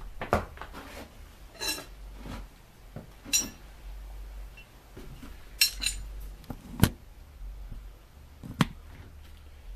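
Metal hand tools clinking and knocking as they are handled and picked up, about half a dozen separate sharp clinks, over a low steady hum.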